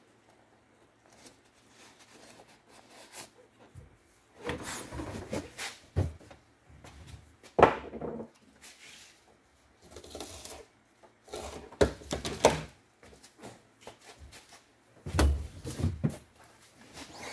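Intermittent handling noises: knocks, clatter and rustling with quiet gaps between. The loudest is a single sharp clack about seven and a half seconds in.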